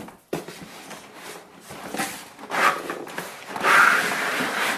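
Cardboard box and cardboard packing inserts rubbing and scraping as a printer is worked out of its shipping box. The scraping gets louder near the end.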